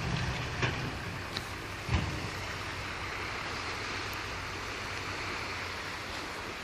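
Fiat-Allis bulldozer's diesel engine running with a low rumble under a steady hiss, and a few sharp knocks in the first two seconds, the loudest about two seconds in.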